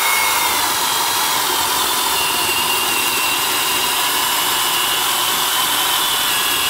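Milwaukee 0222-1 3/8-inch corded drill, all ball and needle bearings, boring into wood with a spade bit under hard feed pressure. Its motor whine drops a little in pitch over the first couple of seconds as the bit bites in, then holds steady. The drill barely slows under the load.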